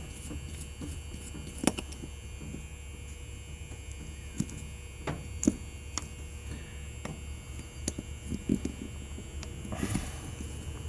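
Scattered light clicks and taps of small metal lock parts being handled and set down during disassembly of a deadbolt cylinder, over a steady low hum.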